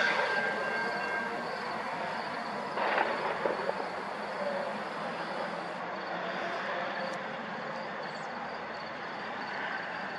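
VIA Rail passenger train running past on the tracks, its rail and wheel noise fading as it moves away, with a level-crossing bell ringing in an even rhythm. A single knock about three seconds in.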